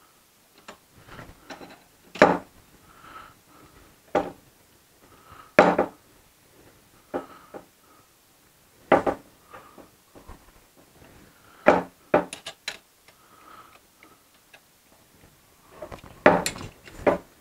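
Metal parts, screws and tools of an aluminium laser-engraver frame being handled on a wooden table during assembly. Scattered metallic clinks and knocks come a second or a few seconds apart, with quieter clicking between, and a quick cluster near the end.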